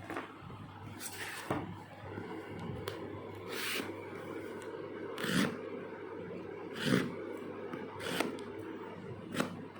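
Knife scraping and cutting at a parcel's packaging, about seven short scrapes spaced a second or more apart over a steady low hum.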